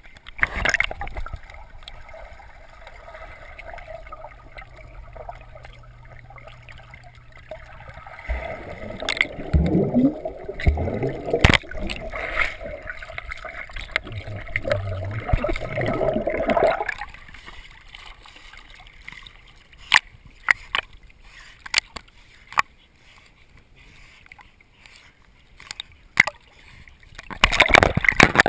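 Water sloshing and splashing as dogs swim, with sharp knocks and clicks scattered through. A louder stretch of churning water runs from about a third of the way in until past the middle.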